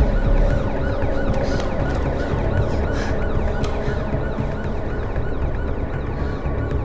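Police car siren wailing with a rapid rise and fall, over a low, steady rumble.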